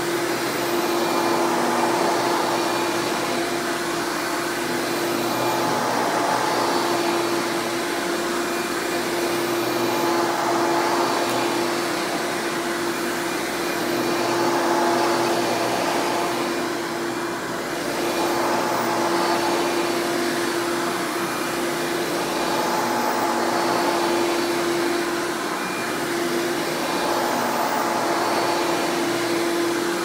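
Hoover Legacy Widepath upright vacuum cleaner, fitted with a Hoover Breathe Easy motor, running loud and steady on carpet. Its hum swells and eases about every four seconds as it is pushed back and forth.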